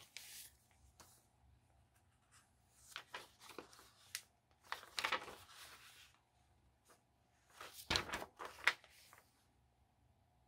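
Soft paper rustling as the thick pages of a handmade junk journal are turned and handled, in separate bursts about three, five and eight seconds in.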